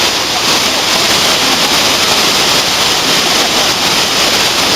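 Typhoon downpour: heavy rain and pouring water making a loud, steady rushing noise with no let-up.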